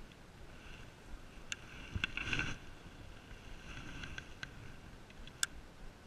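Baitcasting reel on a bass rod: a brief whir about two seconds in, likely a cast as the spool spins out, then the handle being cranked to retrieve the lure. A few sharp clicks come from the reel, the loudest near the end.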